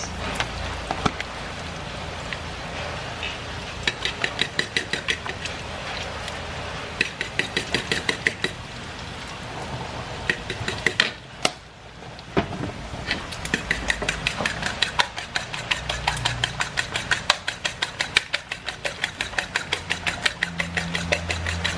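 Metal spoon beating raw eggs and grated Parmesan in a bowl for carbonara sauce, clinking against the side in quick runs of about five strokes a second, with a short pause about 11 seconds in.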